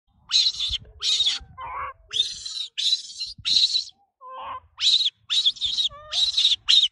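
Young macaques screeching: a rapid series of about a dozen short, harsh, high-pitched calls with brief gaps, mixed with a few lower squeaks.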